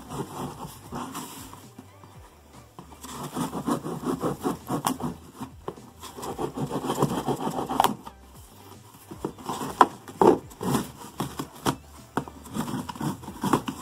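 A kitchen knife cutting and scraping through packing tape along a cardboard box's seam: rapid rasping strokes in two stretches, with a few sharp taps.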